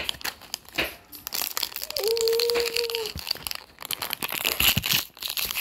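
Crinkly plastic wrapping of an L.O.L. Surprise Lil Sisters ball being crumpled and pulled open by hand, in dense irregular crackles. About two seconds in, a steady held tone sounds for about a second.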